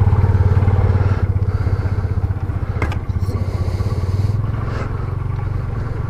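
Motorcycle engines idling with a quick, even pulse; the loudest eases off about a second in, and a single click comes near the middle.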